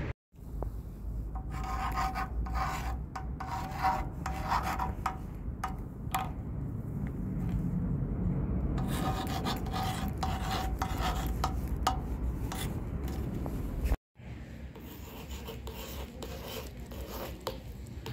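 Metal tip of a correction pen scratching and rubbing across rusty steel in a run of short strokes, some with a squeaky edge. After a sudden cut about fourteen seconds in, the pen scratches on again over stone. A steady low rumble runs underneath.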